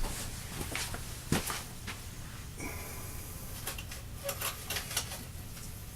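Handling noises as a snake is put back into its enclosure: a string of clicks and knocks, with a short scrape or squeak about two and a half seconds in.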